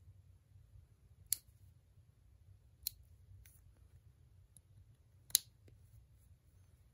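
Sharp metal clicks as a Nepros 6.35 mm quick spinner is handled and pushed onto the square drive of a small 1/4-inch ratchet: three distinct clicks, the loudest about five seconds in, with a few fainter ticks between.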